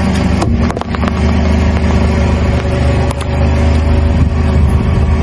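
Car engine running steadily while the car creeps forward on asphalt, a low even hum. A few sharp clicks sound about half a second in and again near three seconds in.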